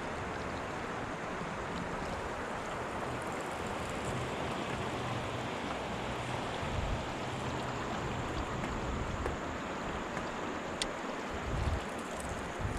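Steady rush of river water, with gusts of wind rumbling on the microphone.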